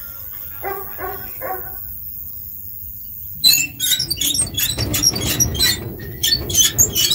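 A dog barks three times in quick succession about a second in. From about three and a half seconds in, loud irregular rustling and knocking takes over.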